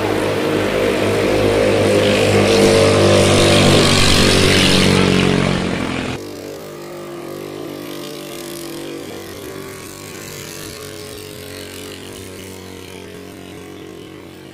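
Racing katinting longtail boat engine running flat out at high revs, loud for about six seconds, then cut off abruptly and replaced by a quieter, more distant boat engine still running at speed, with the hiss of heavy rain on the water.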